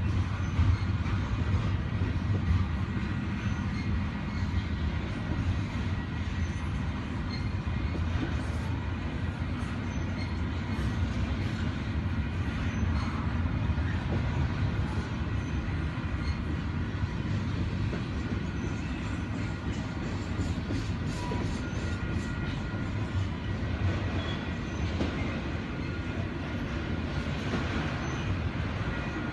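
Freight train cars rolling past on the rails: a steady, dense rumble of wheels on track.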